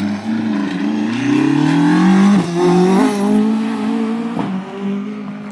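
Ford Escort Mk2 rally car accelerating hard past at full throttle, engine pitch climbing, with a sharp drop at an upshift about two and a half seconds in and another just after three seconds, then fading as it pulls away.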